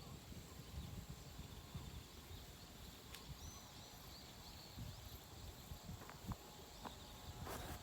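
Faint outdoor background: a low, uneven rumble with a few soft knocks and a brief rustle near the end.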